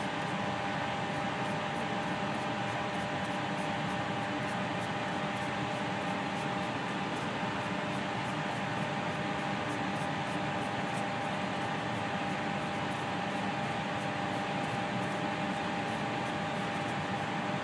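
Steady hiss and hum of room ventilation or air conditioning, with a faint steady tone running through it and no distinct events.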